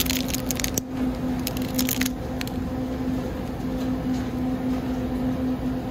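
Rigid plastic clamshell food pack crackling as it is picked up and handled, a cluster of sharp crinkles in about the first two seconds, over a steady low hum.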